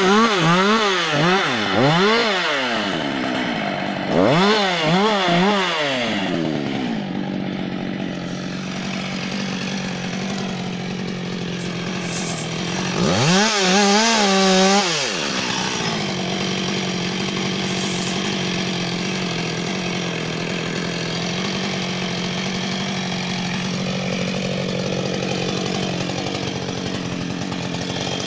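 Husqvarna 560 XP two-stroke chainsaw revved up and down in several quick throttle blips, then idling. About halfway through it runs at full throttle for about two seconds as it cuts through a log, then drops back to a steady idle.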